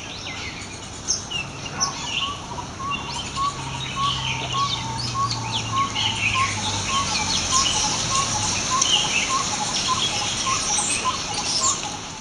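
Mixed flock of birds calling in a fruiting fig tree: many short chirps and twitters, with one bird repeating a single short note about twice a second from about two seconds in until near the end.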